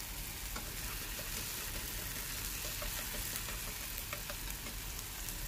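Diced tomatoes frying in oil in a nonstick pan: a faint, steady sizzle with a few small pops and ticks, as chopsticks stir them.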